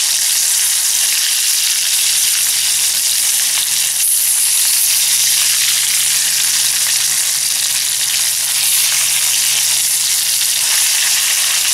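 Steelhead trout pieces frying in hot oil in a camp skillet, a steady, even sizzle.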